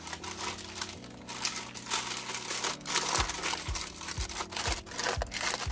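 Parchment cooking paper crinkling and rustling irregularly as it is pushed into an air fryer basket with a block of tofu on it.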